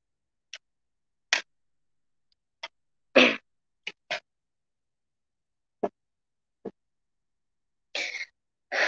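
Short, scattered bumps and rustles of a phone or camera being handled and repositioned, about nine separate knocks with dead silence between them, the loudest just after three seconds.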